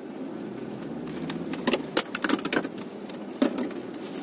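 A quick, irregular run of sharp clicks and knocks inside an Opel Frontera's cabin, with one more knock a moment later. Under them is the steady low hum of the idling engine.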